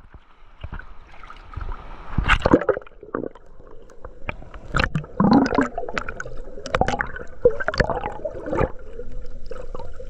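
Seawater sloshing and gurgling around a camera at the surface as it dips under and comes back up, with irregular splashes.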